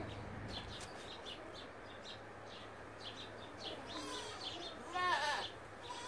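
Small birds chirping in short repeated bursts, with a goat giving a short, wavering bleat about five seconds in and fainter calls just before it.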